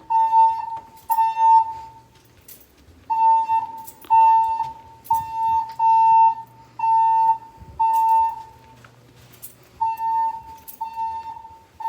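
Fire alarm sounding its evacuation tone: beeps of about half a second at one steady pitch, about a second apart, roughly in groups of three with longer pauses between the groups, the temporal-three evacuation signal.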